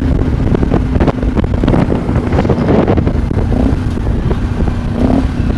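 Sinnis Terrain 125's single-cylinder engine running through a stainless Torro exhaust while the motorcycle is ridden on the road, with steady wind buffeting on the microphone.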